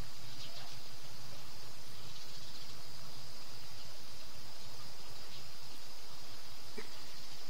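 Steady outdoor insect chorus: a continuous high-pitched trill over a background hiss, with one faint short chirp near the end.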